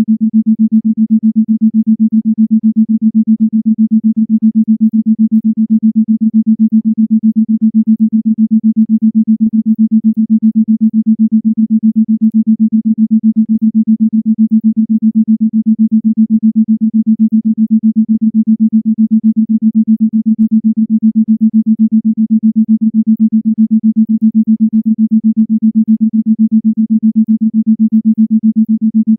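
Isochronic tone: a single low, steady synthesized tone pulsed on and off rapidly and evenly.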